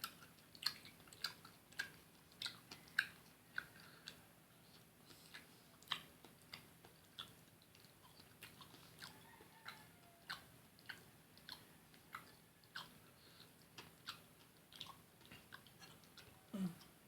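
Close-up mouth sounds of someone eating fried fish: crisp, crunchy bites and chewing clicks, irregular, about one or two a second.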